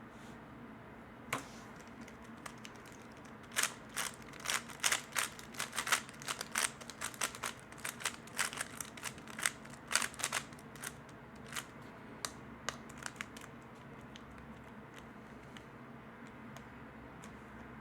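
3x3 speed cube being turned fast by hand: a rapid run of plastic clicks and clacks from about three and a half seconds in to about eleven seconds, with only scattered clicks before and after.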